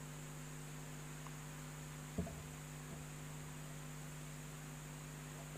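Steady electrical mains hum over a faint hiss, with one faint short knock about two seconds in.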